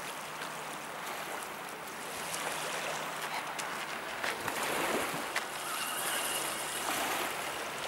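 Small waves washing steadily on a pebble shore, with a few sharp clicks and knocks in the middle.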